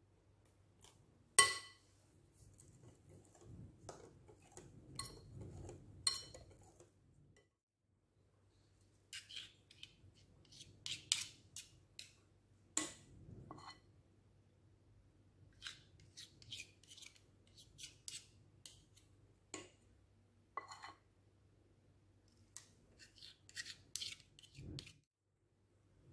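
Metal utensils clinking against a glass mixing bowl, with one sharp ringing strike about a second in, followed by soft stirring of thick batter. After that come many light clicks and scrapes as a metal spoon scoops batter from the bowl into paper liners in a metal muffin tin.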